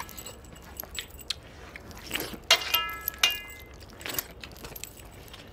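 Eating by hand from steel plates: soft chewing and mouth sounds, with two brief metallic clinks about two and a half and three seconds in that ring on for a moment like struck steel plate.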